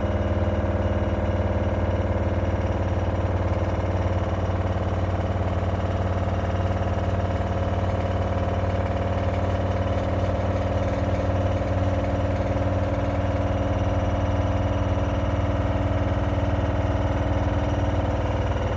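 LG CV5011TS4 washer-dryer in its spin cycle: the drum runs at a steady speed with a loud, even hum of several low tones over a rushing noise. This is the noise the owner is almost certain comes from a blown drum shock absorber.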